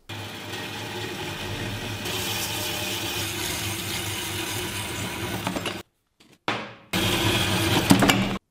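Metal-cutting bandsaw running and sawing through a round steel bar: a steady motor hum under the blade's cutting noise. It breaks off abruptly about six seconds in and starts again a second later.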